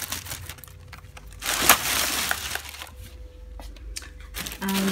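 Thin plastic shopping bag rustling and crinkling as hands rummage through groceries and pull out a plastic yoghurt bottle, in two louder bursts, about a second and a half in and near the end.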